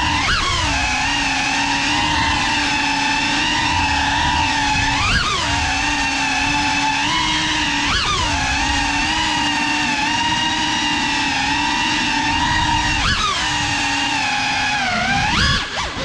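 GEPRC Cinelog 35 cinewhoop drone's motors and ducted propellers whining steadily. The pitch jumps up sharply and falls back about five times as the throttle is punched.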